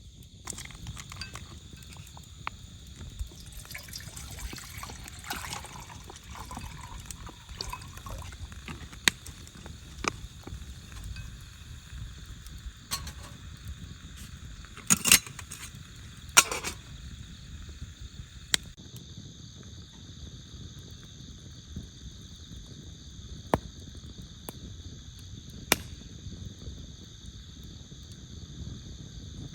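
Night insects trilling steadily, with a scattering of sharp single crackles and clicks, the loudest about halfway through.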